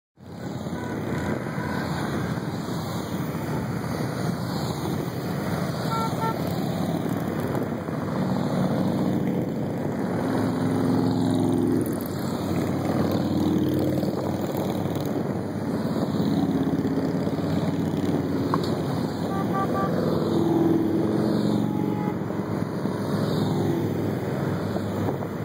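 A long procession of cruiser and touring motorcycles riding past one pair after another, a steady engine din that swells and fades as each group goes by.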